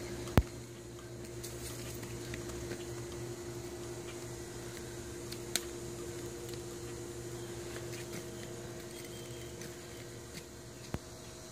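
Steady machine hum with a constant tone, broken by a few sharp clicks, the loudest just under half a second in.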